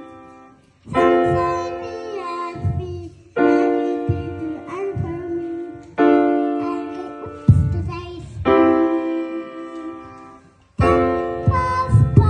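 Grand piano played by a young child: full chords over bass notes, each struck about every two and a half seconds and left to ring and fade before the next.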